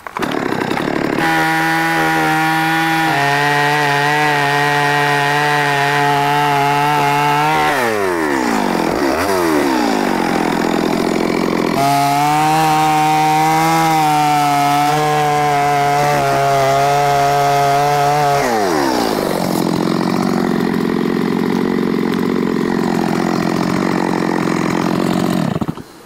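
Two-stroke chainsaw cutting through a tree stump. It runs loud at high revs in two long spells, the pitch falling away after each, then runs lower and steadier before it cuts off just before the end.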